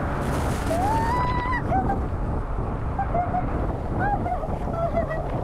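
Torrential artificial rain from a large rainfall simulator pouring down steadily. Over it, a child's voice calls out: one rising, held cry about a second in, then several short high cries.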